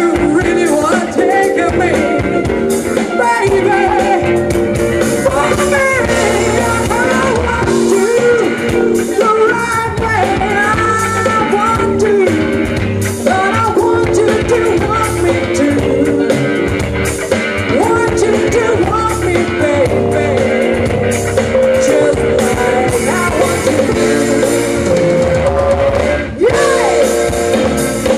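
Live band playing: a woman singing over electric guitars and drums.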